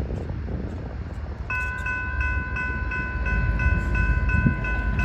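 Railroad crossing warning bell starting up about a second and a half in, ringing about three strikes a second over a low rumble of wind on the microphone: the crossing signals have just activated for an approaching train.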